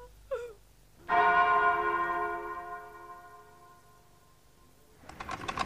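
A single stroke of a church bell about a second in, ringing and slowly dying away over about three seconds. Near the end a sewing machine starts running with a fast, even clatter.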